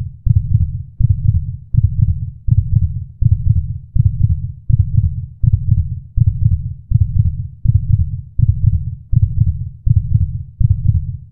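Heartbeat sound effect: a steady, loud pulse of low double thuds, about 80 beats a minute.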